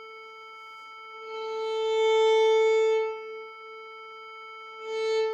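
Steady electronic reference tone at A = 442 Hz while a violin's open A string is bowed against it to tune: one long bow stroke swells in about a second in and fades after about three seconds, then a short stroke comes near the end. The string sits almost exactly on the reference pitch.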